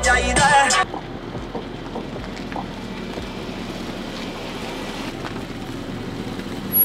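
Background music that cuts off abruptly under a second in, followed by a steady, even rushing noise of open-air ambience with no clear engine note.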